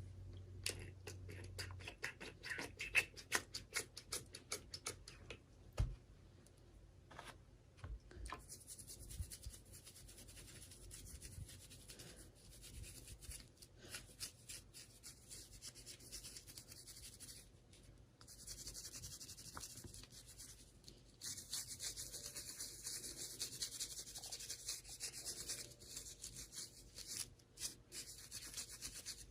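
Hands handling and unwrapping small toy packaging: a quick run of small clicks at first, then long stretches of faint, hissy rubbing and scratching.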